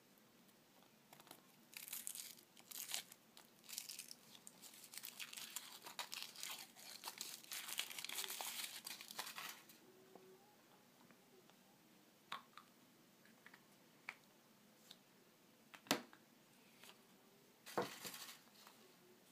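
Thin foil wrapper crinkling and tearing as it is peeled off a chocolate surprise egg, for several seconds. Then a few scattered sharp clicks and a short snap as the chocolate shell is cracked open and the plastic toy capsule handled.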